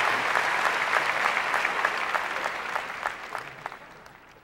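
Theatre audience applauding, the applause thinning to scattered separate claps and fading out toward the end.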